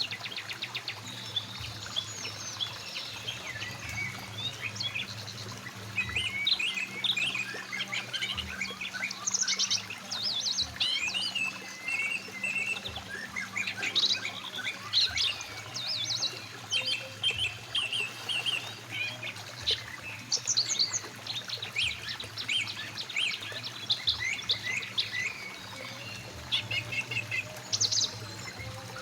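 Several songbirds chirping and trilling in quick, overlapping calls, over the steady flow of a mountain river.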